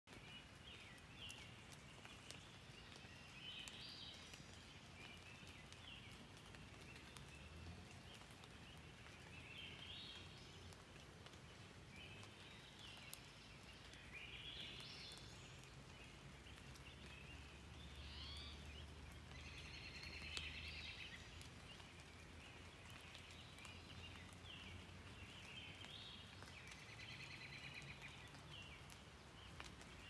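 Faint light rain falling in a forest, an even hiss with scattered drip ticks, while a songbird sings short high phrases every few seconds.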